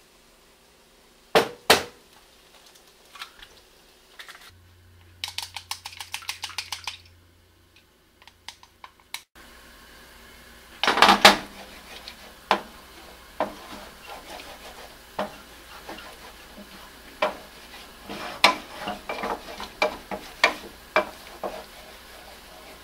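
Two sharp knocks, then a rapid even clicking of about eight strokes a second against a bowl as an egg is beaten. After that a wooden spatula stirs and scrapes a thickening milk-and-egg carbonara sauce around a nonstick frying pan, in irregular knocks and scrapes.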